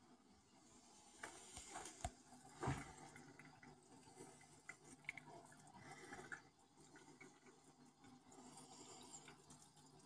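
Faint water sounds in a turtle tank: light splashing and dripping as a hand dips into the water, with a few soft knocks about two to three seconds in and a faint low hum underneath.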